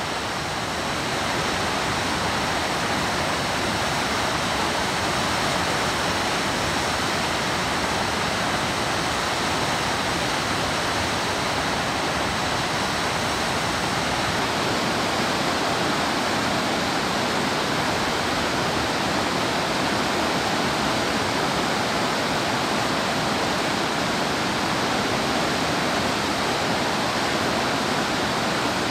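Mountain river water cascading over boulders into whitewater: a steady, unbroken rushing of falling water.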